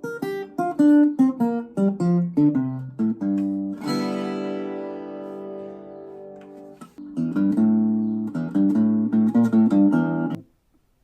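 Enya Nova Go SP1 carbon-fibre acoustic guitar played on its own acoustic sound, without its built-in effects: a run of picked notes falling in pitch, a strummed chord left ringing, then quick picked notes that stop abruptly near the end.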